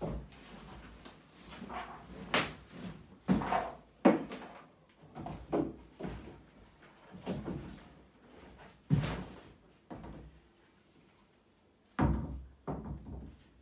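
A freestanding bathtub being lifted out of its cardboard box: cardboard scraping and rustling with a series of bumps and knocks, and a loud thump near the end as the tub is set down on the floor.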